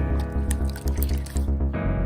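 Background music with a steady bass beat, over faint wet squishing and clicking of slime being handled.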